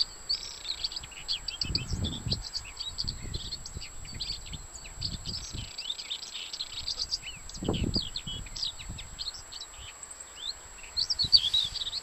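Skylark singing: a long, unbroken stream of rapid, varied high chirps and trills. A couple of low rumbles on the microphone come about two and eight seconds in.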